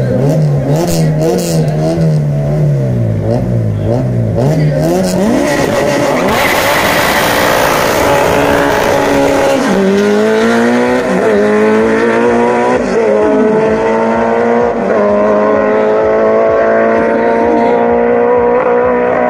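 Drag-race car engine revving up and down at the start line for about five seconds, then launching hard. It accelerates down the strip, its pitch climbing and dropping back at each gear change.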